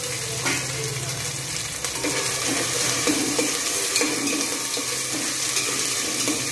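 Freshly added chopped tomatoes with onions frying in hot oil in a stainless steel pot, sizzling steadily, while a steel spoon stirs and scrapes them against the pot.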